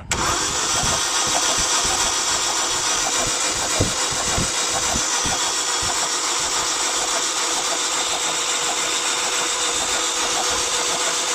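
Starter motor cranking a 2000 Holden Astra's engine steadily for about eleven seconds without it catching, during a spark test on a hard-starting car.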